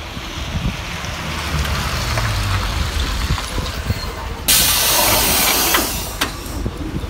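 Isuzu Erga diesel city bus pulling up with its engine running low, then about four and a half seconds in a sudden loud hiss of compressed air from the bus's pneumatics that lasts about a second and a half.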